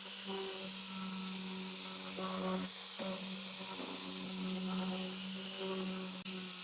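A small electric motor running steadily with a low hum and a faint high whine, dipping briefly twice.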